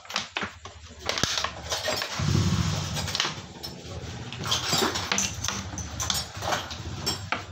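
Hand tools and small metal engine parts clinking and knocking, in a run of short irregular clicks, as valve covers are fitted to a scooter engine's cylinder head.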